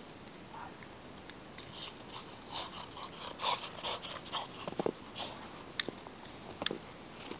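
Footsteps crunching irregularly in fresh snow, busiest in the middle, with a few sharp clicks.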